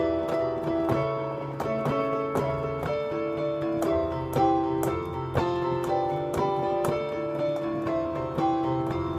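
Digital piano played solo: a melody over held chords and bass notes, several notes struck each second.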